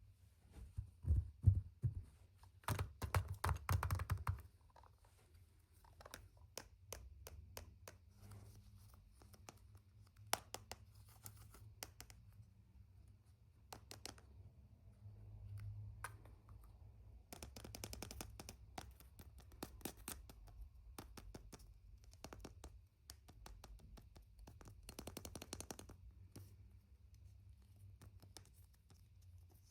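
Surprise-egg packaging being handled and opened by hand: scattered light clicks and taps of plastic and wrapping, with denser crinkly stretches a few seconds in and twice more later, over a faint steady hum.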